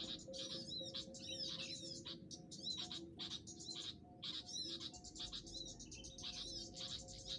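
Many small birds chirping in quick, high twittering calls with fast pitch sweeps, packed closely together, over background music with held notes.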